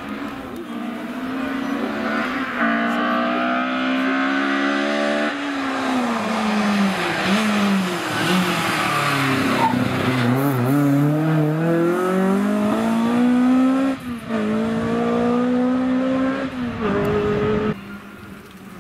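Historic rally car engines revving hard on a twisty tarmac stage. Revs climb through the gears, drop sharply on braking into hairpins and rise again on the exits, over several separate passes that break off abruptly.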